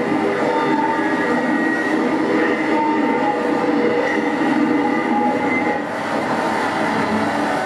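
Rod drawn across an upright metal bar, amplified: a dense, grinding metallic noise with several held squealing tones, steady in loudness and easing slightly about six seconds in.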